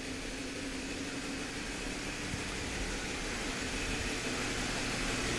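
Steady low mechanical hum with a hiss, a few even droning tones, growing slowly louder.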